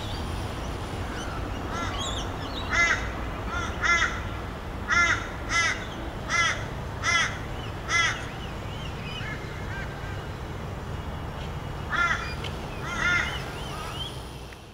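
A crow cawing repeatedly: a run of about seven short caws starting some three seconds in, then two more near the end, over a steady low background rumble.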